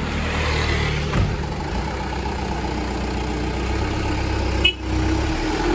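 Diesel engine of a light cargo truck running at low revs as it pulls slowly away, growing gradually louder as it nears. A brief sharp spike and cutout come near the end.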